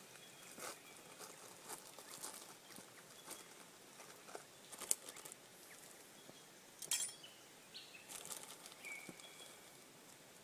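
Light clicks and taps of a spoon scooping ground coffee into a Vietnamese coffee filter, with two sharper taps around the middle.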